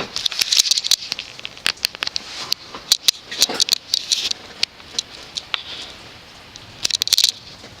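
Irregular rustling and crackling with scattered sharp clicks, heaviest in the first second or so, again around three to four seconds in, and once more near the end.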